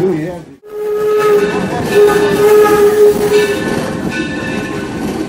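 Steam whistle of an 1870s steam locomotive blowing one long steady blast of about three seconds, over the rumble of the train running along the track.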